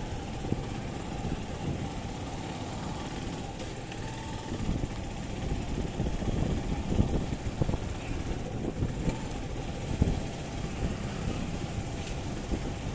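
Motorcycle running as it is ridden along a town street, heard from the rider's seat, with a dense, uneven low rumble.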